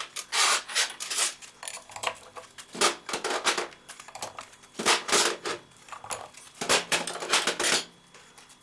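Hand tools working on metal engine parts during disassembly, making rapid metal-on-metal clicking and clinking in four bursts of about a second each.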